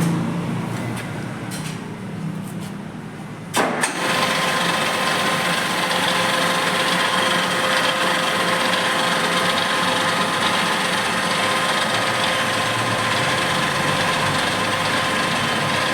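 A sharp click, then the spindle head of a WMW Heckert milling machine starts up and runs steadily with a constant whine. Before the click there is only a quieter steady hum.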